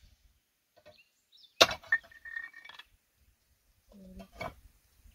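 A long steel pry bar striking and levering flat slabs of stone. A sharp clank comes about a second and a half in, followed by stone pieces clinking and scraping, and a weaker knock comes near the end.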